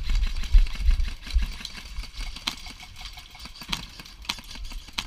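Low rumble of wind buffeting a head-mounted camera's microphone, heaviest in the first second and a half. A few single sharp cracks of airsoft rifle shots come at intervals of roughly a second.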